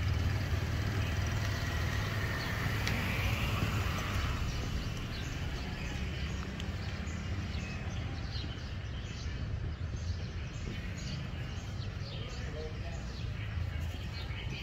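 A steady low rumble of traffic, with small birds chirping in short repeated calls that start about five seconds in.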